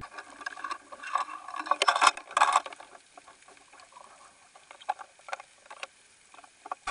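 Underwater audio from a fishing camera rigged on the line: muffled scratching, clicking and knocking in and around the camera housing, busiest in a cluster of loud bursts between one and two and a half seconds in, then sparser ticks.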